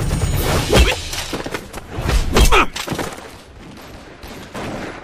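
Two loud crashing impacts about a second and a half apart, with short cries mixed in: film battle sound effects.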